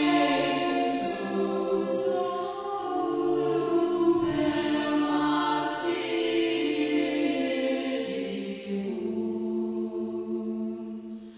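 Choral music: several voices singing long held notes that change pitch slowly, fading out over the last few seconds.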